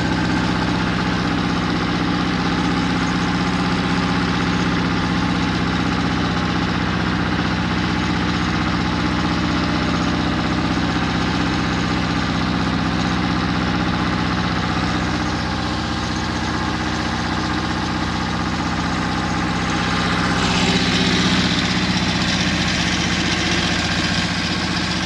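Pasquali 425 30-horsepower compact tractor's engine running steadily while pulling a mounted plough through garden soil. It gets slightly louder about twenty seconds in.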